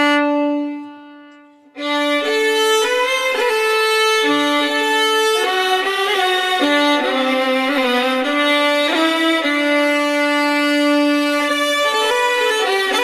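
Solo violin recorded through a United UT Vintage87 large-diaphragm condenser microphone: a held note fades out in the first second or so. About two seconds in, a multi-tracked violin part starts, several layered violin lines playing together in harmony.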